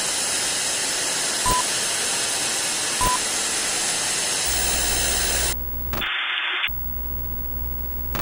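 Analog television static: a steady loud hiss, with two short beeps about a second and a half apart. Near the middle the hiss cuts off suddenly, leaving a low electrical hum and buzz with one brief return of hiss.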